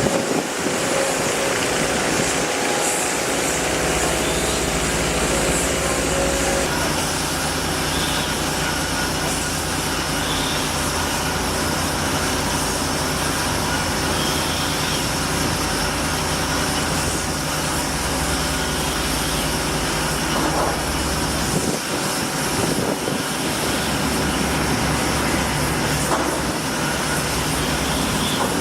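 Engines running steadily. A pitched drone gives way about six seconds in to a steadier rumble and hiss that continues unbroken.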